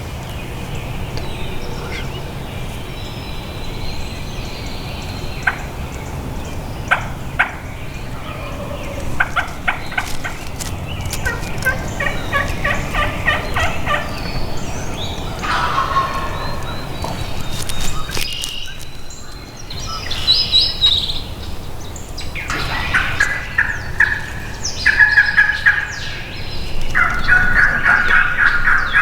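Wild turkey gobblers gobbling from the roost: a series of rapid, rattling gobbles, several in a row, the loudest near the end, with songbirds chirping.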